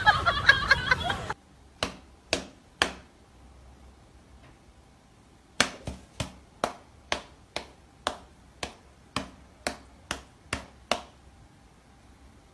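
A short stretch of voice and music, then a series of sharp taps or knocks. Three come about half a second apart, then after a pause of nearly three seconds about a dozen more follow at roughly two a second, stopping about a second and a half before the end.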